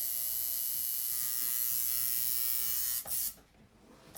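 Electric tattoo machine buzzing steadily. It cuts out about three seconds in, gives one short buzz, then stays off for about a second before starting again at the very end.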